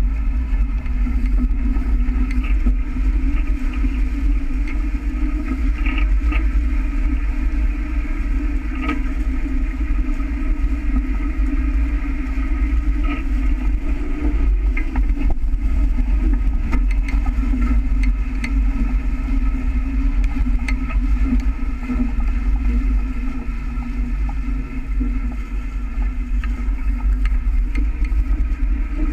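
Sailing catamaran under way: a steady rush of wind buffeting the hull-mounted camera and water streaming past the hulls, with a constant low hum and occasional faint ticks.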